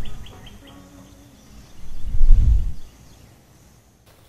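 A bird chirping in a quick run of short high notes that stops within the first second. About two seconds in, a loud low rumble swells and dies away within a second, followed by little sound.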